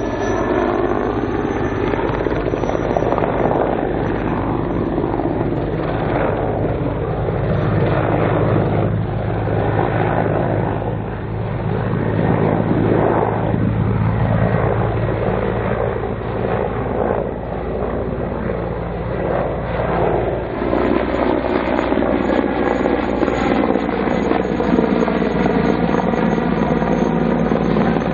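Mil Mi-24 attack helicopter in a flying display, its rotor and turbine engines sounding steadily as it makes passes. The pitch falls as it flies by, and the sound fades somewhat in the middle as it flies farther off. It grows loud again toward the end as it comes back close.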